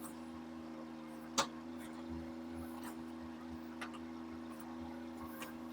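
Mini excavator's engine running at a steady pitch, with a few sharp clicks, the loudest about a second and a half in.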